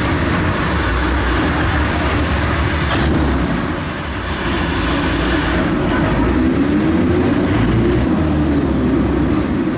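Engine of a PTS-M tracked amphibious transporter running hard under way, a loud steady drone with a short dip in loudness about four seconds in.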